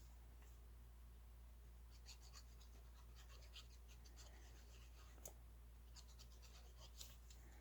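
Faint rustling and light clicks of paper pieces being handled and placed, starting about two seconds in, over a low steady hum.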